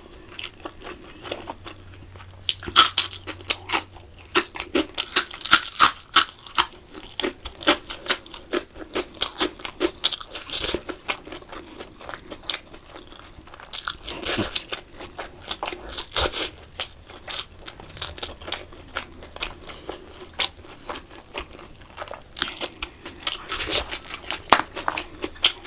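Close-miked eating: a person chewing and crunching food, with many quick crunchy clicks and louder clusters of bites every few seconds.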